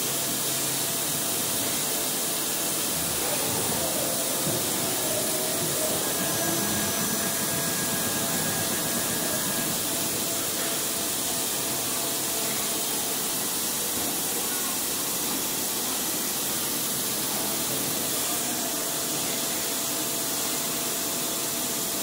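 Steady hissing machinery noise on an injection moulding shop floor, with faint steady tones underneath.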